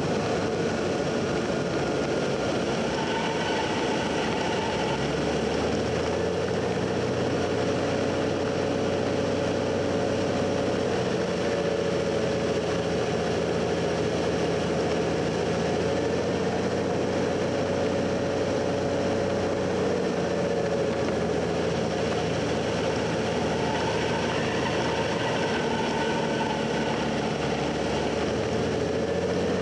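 Cessna 182's piston engine and propeller running steadily, a continuous drone whose pitch shifts a little now and then.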